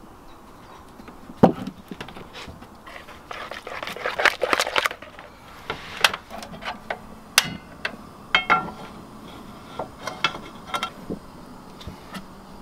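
Cookware and utensils being handled: scattered knocks and clicks, a stretch of scraping and rustling about four seconds in, and several light clinks, one or two ringing briefly, around eight seconds in.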